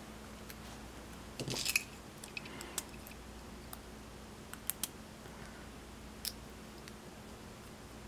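Faint metallic clicks and light scrapes as a brass lock cylinder is handled and a thin metal shim is slid into its core to disassemble it: a short cluster of clicks about one and a half seconds in, then a few isolated ticks.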